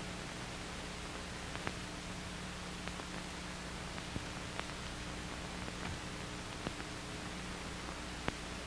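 Faint steady hiss and low hum of an old film soundtrack, broken by scattered faint clicks and pops.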